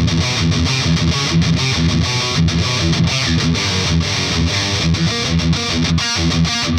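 Heavily distorted electric guitar through a Peavey Bravo 112 all-tube combo amp on its highest-gain channel, with the mids rolled back for a scooped thrash tone. It plays a fast riff of short, chopped chords with brief stops.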